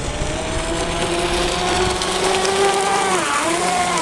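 High-speed RC offshore catamaran's electric brushless motor (a Neu 2215 kV on 8S driving a 60 mm three-blade propeller) whining at full throttle. The whine climbs slowly in pitch, then drops sharply about three seconds in as the boat runs past close by.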